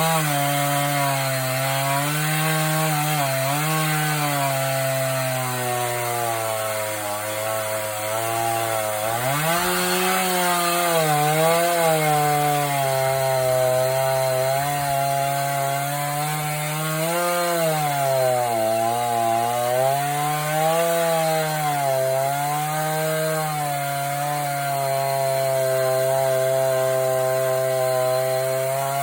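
Chainsaw on an Alaskan chainsaw mill ripping lengthwise through a hardwood log, the engine held at high throttle with its pitch sagging and recovering as the chain loads up in the cut.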